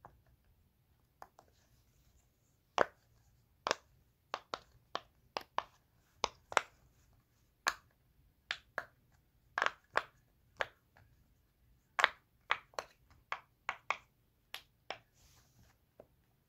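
Fidget toys being clicked and tapped for ASMR: a run of short, sharp clicks at irregular intervals, some much louder than others.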